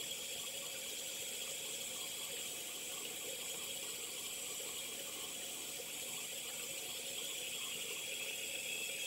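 Water running steadily from a bathroom sink tap.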